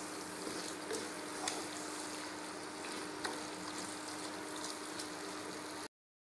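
Chicken and masala sizzling in a nonstick pot as they are stirred with a wooden spatula, with a few light scrapes and knocks of the spatula, over a faint steady hum. The sound cuts off abruptly near the end.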